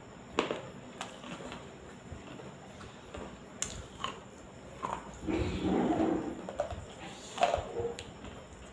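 Biting and chewing on water-soaked clay: soft, wet crunches and sharp mouth clicks, with a longer, louder spell of chewing about five seconds in and another bite near the end. A room fan hums steadily underneath.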